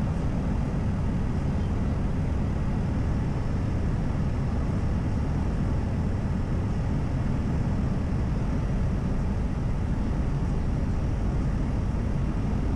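Airbus A320 in flight on approach, a steady low rumble of airflow and engine noise with a faint high steady whine above it.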